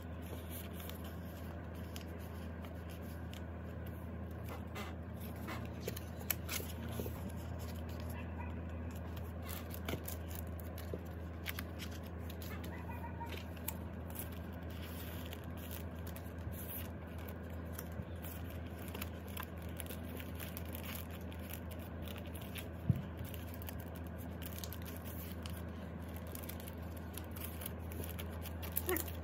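Clear plastic photocard sleeves in a ring binder crinkling and rustling as cards are handled and slid in, with one sharper click late on, over a steady low hum.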